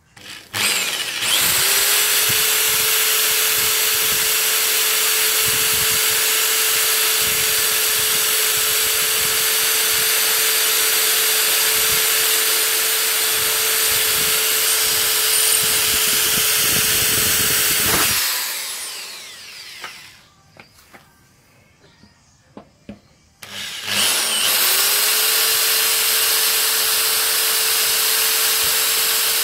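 Corded electric drill running a blunt twist bit through the sheet-metal front guard of a Toyota Prado 90 Series. It runs steadily for about 18 seconds, winds down, and after a few seconds' pause with a few small clicks it starts up again.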